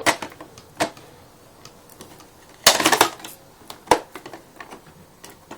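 Hard plastic clicks and clatter as a pan converter is pushed up and clipped onto the underside of a Hoover Turbopower 1 upright vacuum. A single click comes about a second in, a short clatter a little before the midpoint, and a sharp click about a second after that.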